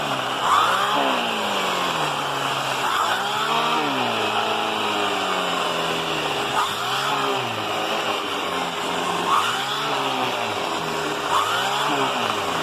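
Vacuum cleaner running with an air-driven turbo brush worked back and forth over a bed, under a steady high whine. The lower pitch rises and falls with each stroke, about every two seconds, as the load on the brush changes.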